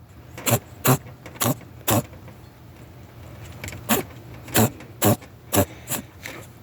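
Pet rabbit sneezing in quick short bursts: four sneezes in the first two seconds, then five more from about four to six seconds in.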